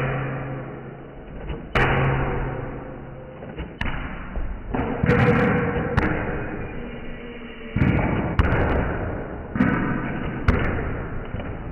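A series of heavy thuds, roughly every one to two seconds, each followed by a long fading ring, over a low steady hum.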